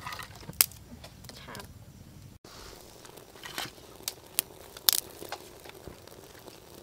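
Kindling twigs catching fire in a clay stove, giving a handful of sharp crackles and snaps spaced a second or so apart.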